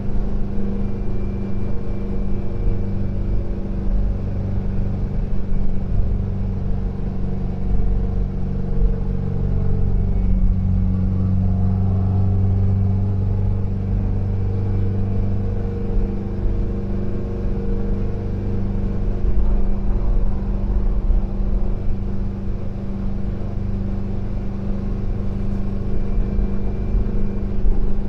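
1973 VW Type 2 (T2) Devon camper van on the move, its freshly rebuilt air-cooled flat-four engine running at a steady, even pitch.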